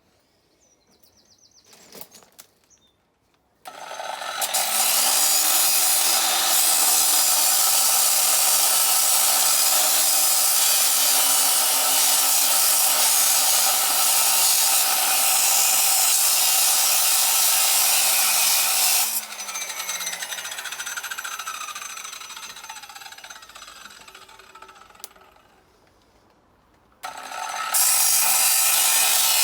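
Angle grinder running under load for about fifteen seconds, its motor pitch wavering. It is then switched off and winds down with a falling whine, and starts again near the end.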